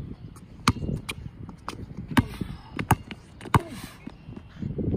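Basketball bouncing hard on an outdoor hard court: uneven sharp bounces, the loudest four spread through the middle seconds.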